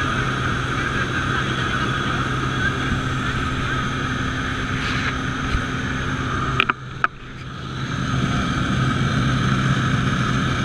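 Steady drone of a small propeller aircraft's engine heard inside the cabin during the climb. About two-thirds of the way through there are a couple of sharp clicks and the drone briefly drops away before returning.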